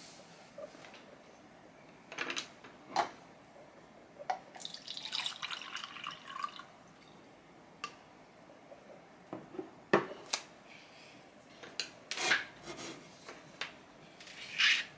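Desk-top handling sounds while painting: scattered clicks and knocks of a paintbrush, cup and paint things being picked up and set down, with water poured into a cup for rinsing the brush, a splashy stretch of about two seconds a few seconds in.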